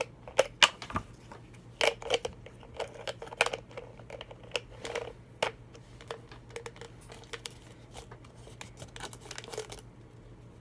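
Plastic bottle caps and the duct-taped bottle-neck body of homemade toy binoculars being handled and twisted, giving irregular sharp clicks and small knocks that thin out toward the end.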